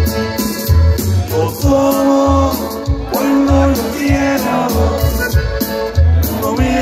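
Live norteño conjunto music over a PA: button accordion, guitars, bass and drums on a steady two-beat pulse, with a voice singing from about a second and a half in.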